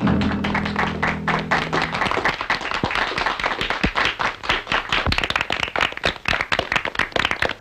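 A small group of people applauding, with the final held chord of a solo grand piano ringing under the claps and dying away over the first two seconds.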